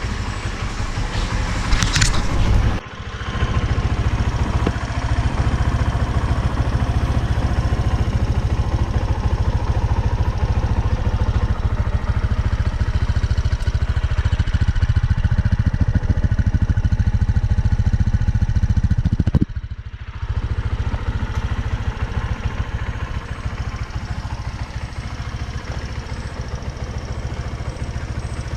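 Teyin Falcon 200 scooter's engine running steadily through its freshly repaired muffler, with brief dips in the sound about three seconds in and again about twenty seconds in.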